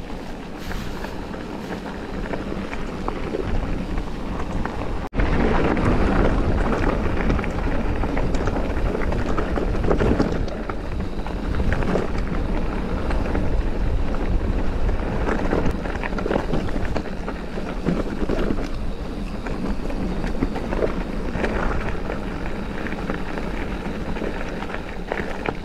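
Mountain bike riding down a rough, flint-strewn trail: tyres rolling over stones and the bike rattling with many small knocks, over wind buffeting the microphone. An abrupt break about five seconds in, after which it is louder.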